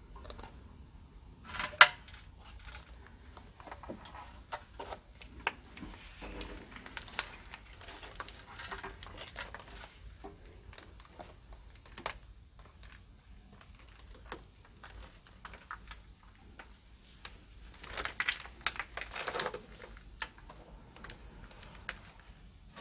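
Footsteps crunching and scuffing over broken rubble and debris, with scattered small clicks and knocks. A single sharp knock comes about two seconds in, and a longer run of crunching comes near the end.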